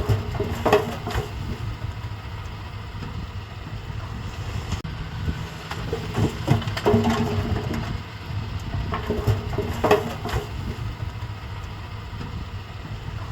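Mitsubishi bulldozer's diesel engine running with a steady low rumble, with clusters of metallic clanking from the tracks and blade working about a second in, around the middle and again near the end.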